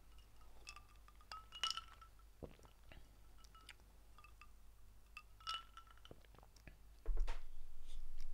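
Ice cubes clinking against a drinking glass of whiskey and cola as it is tipped to drink, a few light clinks each with a short ringing tone. Near the end the glass is set down on the desk with a dull knock.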